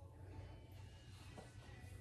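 Near silence: room tone with a low, steady hum.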